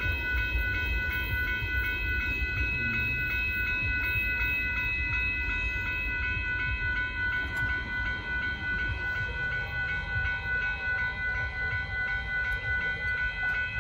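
Union Pacific freight train of boxcars rolling past a grade crossing with a steady low rumble, while the crossing bells ring continuously over it.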